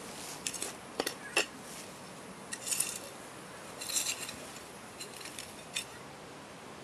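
Garden hand trowel digging and scraping in soil: a string of short, irregular scrapes and clinks, the sharpest about a second and a half in.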